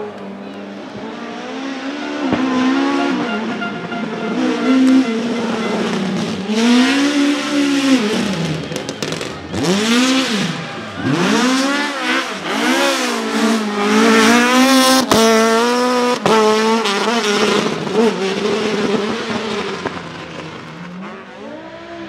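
Rally car engine revving hard, its pitch climbing and falling repeatedly through throttle blips and gear changes, loudest about two-thirds of the way through. Two sharp cracks stand out near that point.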